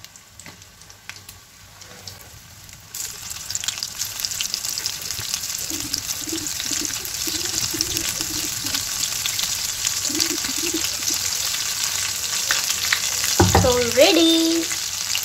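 Batter-coated prawns dropped into hot oil, which breaks into a sizzle about three seconds in and keeps sizzling steadily as the pakoras deep-fry.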